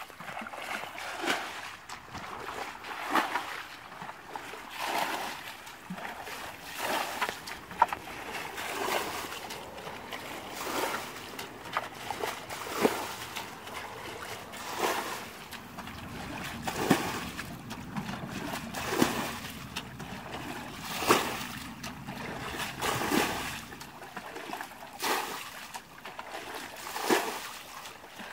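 Water being bailed out of a shallow muddy pool with a bucket: a splash about every two seconds as each bucketful is scooped and thrown out.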